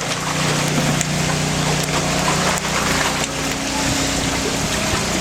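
Wading through knee-deep floodwater, the water sloshing around the legs, with a steady low hum underneath.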